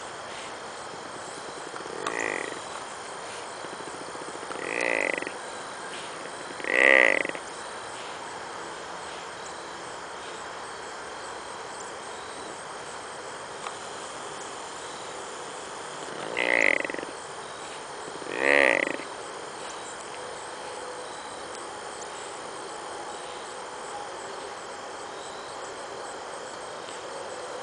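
Tranquilized whitetail buck snoring and whining in deep sedation: five drawn-out pitched breaths, three in the first eight seconds and two more about ten seconds later, with long pauses between.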